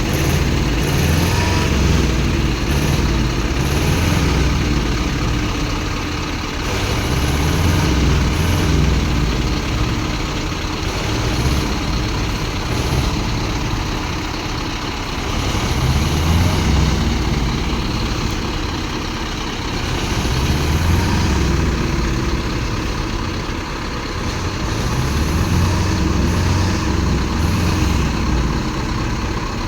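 A heavy diesel vehicle engine, most likely a truck, running and revving up and down over and over, its pitch rising and falling in slow swells every five seconds or so.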